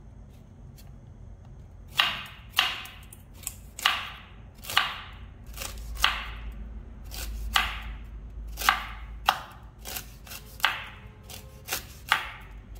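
A knife chopping hard noni fruit. After about two seconds of quiet come sharp chops, one or two a second.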